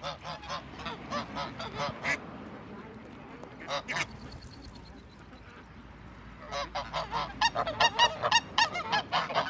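A flock of domestic geese honking: a string of calls at first, a quieter lull with a lone call, then many geese honking together, louder, over the last three seconds.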